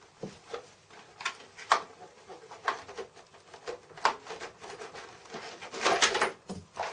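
Handling noises: a few scattered sharp clicks and knocks with some rustling, spaced irregularly and busiest near the end, from small items and packaging being handled.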